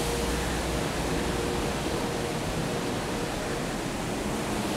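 Steady running noise of rice polishing machines, whose polishing stones spin inside their housings, with a faint steady hum.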